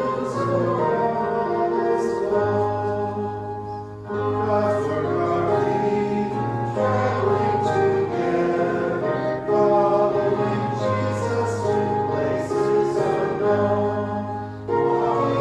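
Voices singing a hymn together over sustained instrumental accompaniment, with short breaks between phrases about four seconds in and again near the end.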